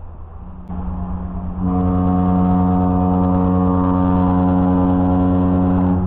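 Ship's fog horn sounding one long, low, steady blast in heavy fog. It swells in over the first second or so and stops near the end.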